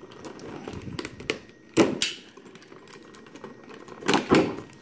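Clear plastic blister packaging clicking and crackling as it is handled, its taped-on base cut free with a box cutter and pulled away. There are two louder sharp cracks, one about two seconds in and one just after four seconds.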